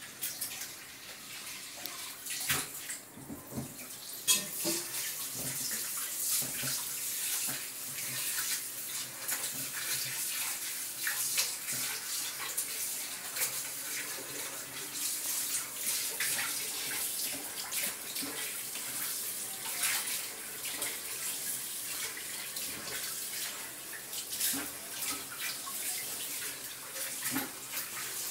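Steady running water with light splashing.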